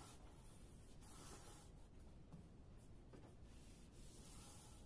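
Faint, soft rubbing swishes of a long thin wooden rolling pin rolled back and forth over a stack of floured baklava dough sheets, a few strokes in all.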